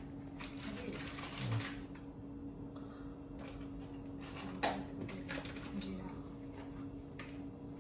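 Scattered light clicks and taps of kitchen items being handled at the stove while whole spices are added to a dry pan, over a steady low hum.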